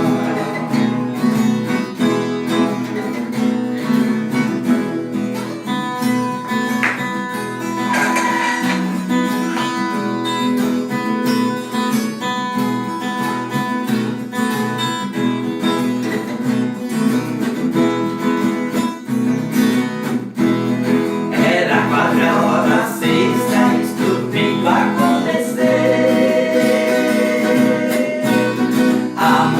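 Acoustic guitar strumming a hymn accompaniment, with a singing voice over it from about twenty seconds in.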